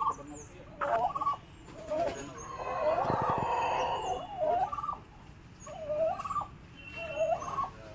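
Domestic turkeys calling: a string of short calls throughout, with one longer, louder gobble from about two and a half to four seconds in.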